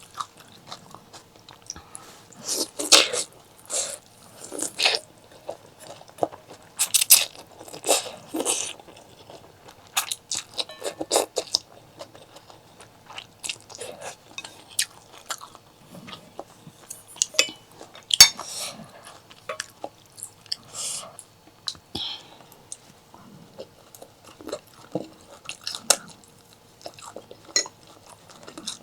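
Close-miked eating: biting and chewing with crisp crunches and wet mouth clicks at an irregular pace, busiest in the first third.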